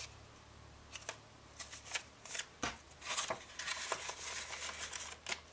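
Paper banknotes being leafed through and counted out by hand: soft, irregular rustles and flicks of the bills, starting about a second in.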